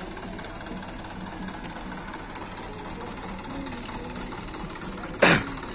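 Diesel truck engine idling with a steady rattling clatter. A single loud knock lands about five seconds in.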